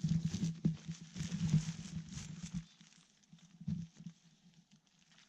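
Rustling and crunching from close-by movement and handling for about two and a half seconds, then only a few faint scattered rustles.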